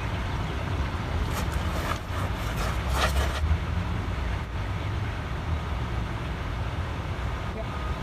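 Wind buffeting the microphone: an uneven low rumble, with a few brief rustles about one and a half and three seconds in.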